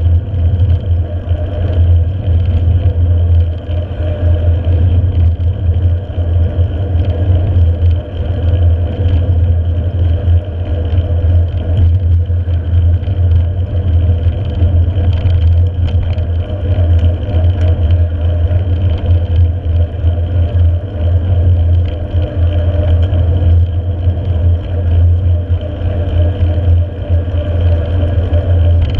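Steady, loud wind noise on a handlebar-mounted camera's microphone, mostly low, mixed with the tyre noise of a mountain bike rolling along asphalt.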